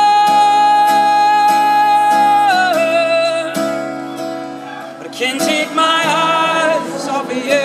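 A male voice holds a long high wordless note over a strummed acoustic guitar. The note steps down about two and a half seconds in, and a second wavering vocal phrase comes in near the end.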